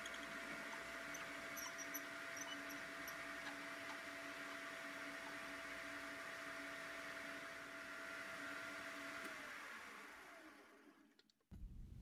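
Small metal lathe running with a steady whine while a drill bit bores out the centre of a socket held in its chuck. About nine seconds in, the pitch falls and the sound fades away as the lathe spins down.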